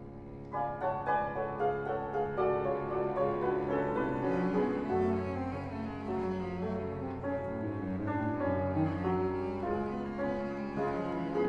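Cello and piano playing a fast classical sonata movement together. The piano comes in about half a second in with quick, busy notes over long held low notes.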